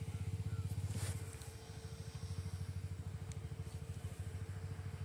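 A small engine idling steadily with a fast, even low throb. A short sharp noise comes about a second in.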